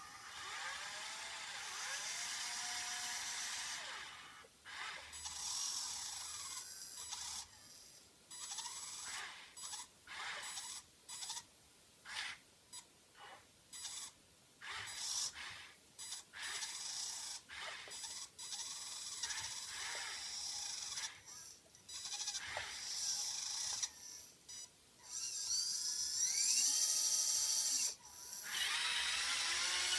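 Small electric motors of a Huina 580 RC excavator and its motorized forklift attachment whining in many short on-off bursts as the controls are worked, the pitch sliding up and down with the load. A longer, louder run comes near the end.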